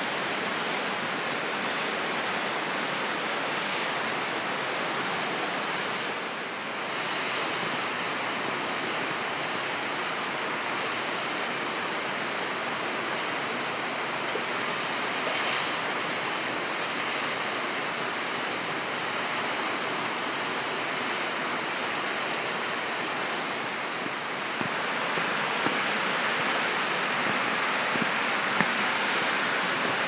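Steady rush of water, growing a little louder in the last few seconds.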